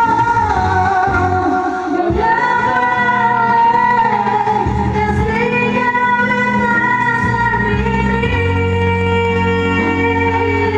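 A woman singing a slow melody with long held notes over instrumental backing music.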